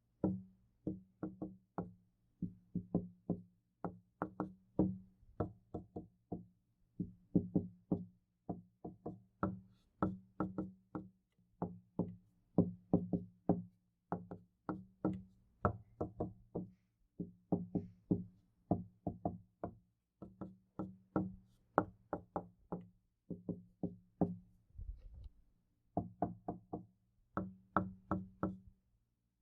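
Knocking on a door, over and over in quick groups of three to six knocks with short gaps between them, each knock carrying a low resonance. Near the end, after a brief pause, there is one low thump.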